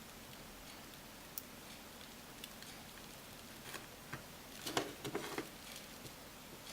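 Faint, scattered clicks and scrapes of a thin pry blade working an iPhone 5's LCD screen assembly loose from its frame, with a short cluster of scratchy clicks about five seconds in.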